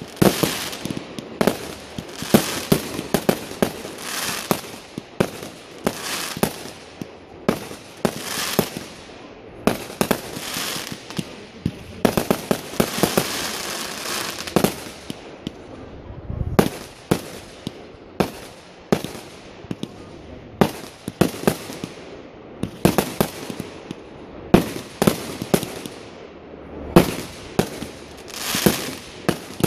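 Aerial fireworks going off in quick succession: a string of sharp bangs, about one or two a second, each trailing into crackle and hiss, with a longer stretch of crackling near the middle.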